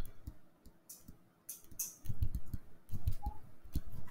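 Stylus tapping and scraping on a laptop touchscreen while handwriting: irregular light clicks, with a denser run of soft knocks in the second half.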